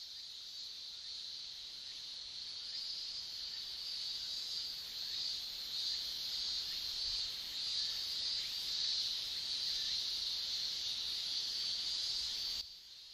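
Steady high-pitched insect chorus, dropping off abruptly near the end.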